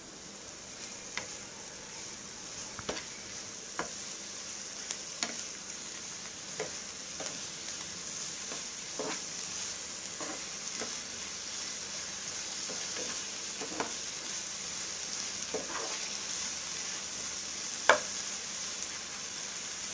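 Onions, capsicum and tomato sizzling in butter in a non-stick frying pan, sautéed to about half done. A spatula stirs them, knocking against the pan now and then, with the loudest knock near the end; the sizzle grows slightly louder.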